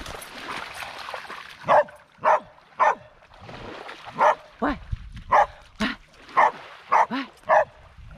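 A dog barking: about ten sharp barks, roughly two a second, starting about a second and a half in, with a short pause after the first three.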